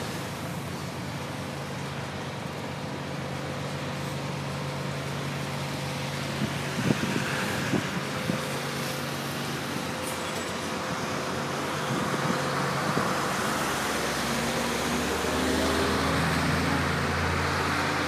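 A motor running steadily under a rush of noise, with a few short knocks about seven seconds in; the noise grows louder over the last few seconds.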